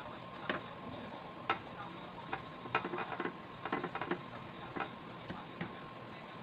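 Irregular light clicks and taps from hands working food in a dish and handling lumpia wrappers, busiest a little under halfway through, over a faint steady hum.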